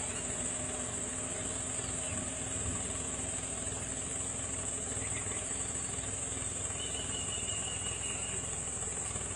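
Steady high-pitched drone of insects, with a faint steady low hum beneath it.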